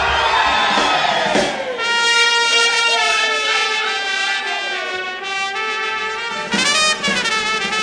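Brass music: trumpets and trombones playing a tune, with a downward sliding run about a second in.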